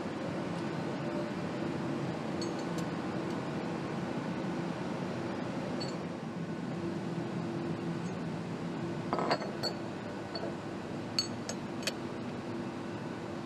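Steady factory machinery hum with a few light metallic clinks of steel connecting rods and gauges being handled at a measuring bench: a louder knock about nine seconds in and three quick clinks near the end.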